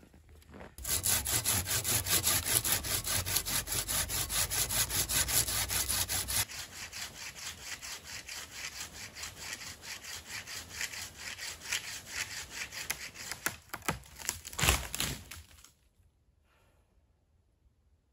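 Hand saw cutting through a branch in fast, even back-and-forth strokes, about five rasps a second. The strokes are quieter after about six seconds, a sharp crack comes near fifteen seconds in, and the sawing stops just after.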